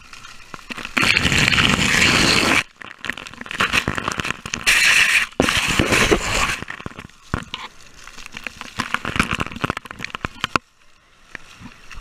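Crackling, crunching noise on a waterproof action camera's microphone. It comes in two loud bursts, about a second in and again just before the middle, with scattered clicks and crackles between and after.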